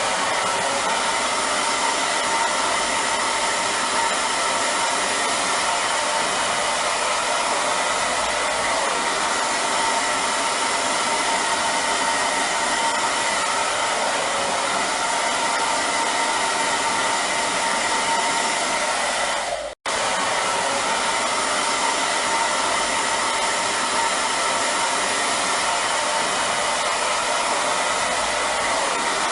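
Hair dryer running steadily: a loud rush of air with a steady whine in it. It cuts out for an instant about twenty seconds in.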